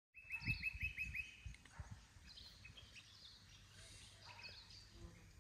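Outdoor ambience with birds calling: one bird gives a quick run of about six short repeated notes in the first second, and other scattered chirps follow. A low rumble runs underneath.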